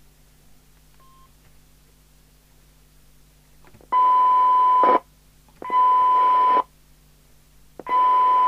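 PNI HP55 CB radio's receiver sounding a steady test tone over hiss. The tone cuts in and out abruptly three times from about four seconds in, as the squelch opens and closes on a weak test signal while the auto-squelch threshold is checked. A short faint key beep sounds about a second in.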